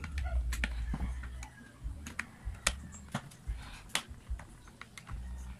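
Irregular clicks and taps of a hand screwdriver on the screws and metal side cover of an electric planer as the cover is screwed back on, with low thumps from the planer being handled.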